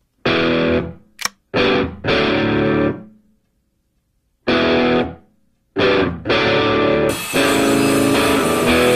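Background rock music: distorted electric guitar chords hit in short stabs with brief silences between them, running into a continuous riff about seven seconds in.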